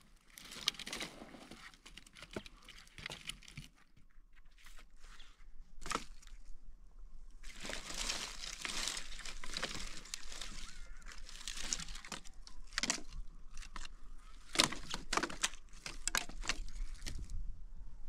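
Irregular rustling and crinkling, broken by many sharp clicks and a brief lull partway through.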